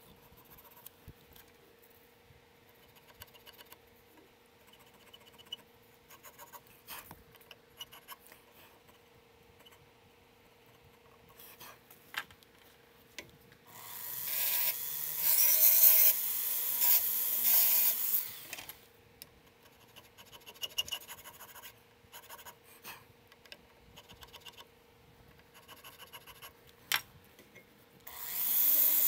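Small high-speed rotary tool with a fine burr cutting checkering into a 1911 pistol grip panel, in two spells: about four seconds starting some 14 seconds in, and again just before the end, its motor pitch wavering as it bears on the work. Between them, only faint scraping and light ticks of hand work on the grip.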